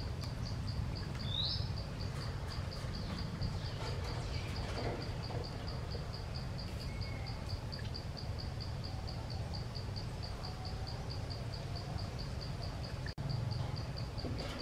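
An insect chirping steadily in a high, even pulse about four times a second, over a low steady rumble of background noise. A short rising chirp sounds about a second and a half in, and the sound drops out for an instant near the end.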